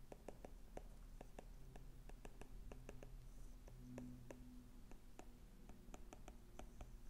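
Stylus tip tapping and scratching on an iPad's glass screen during handwriting: a faint, quick, irregular run of small clicks.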